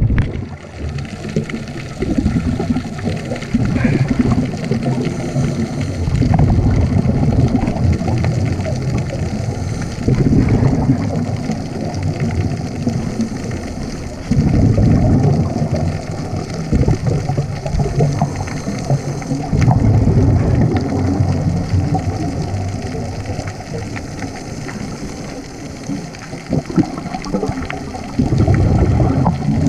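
Underwater recording of a scuba diver's exhaled bubbles rumbling and gurgling in bursts every few seconds, with a steadier water hiss between them.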